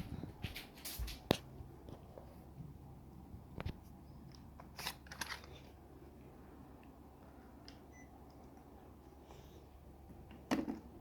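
Scattered light clicks and taps over a faint, steady low hum in a small room.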